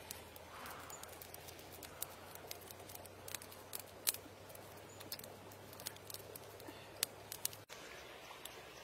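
Charcoal and wood fire crackling under a grill, with irregular sharp pops and ticks over a steady background hiss.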